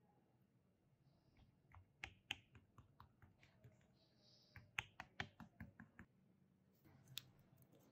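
Fork pricking a shortcrust pastry base in a metal baking tin: a quick, irregular run of faint light clicks as the tines pass through the dough and tap the tin.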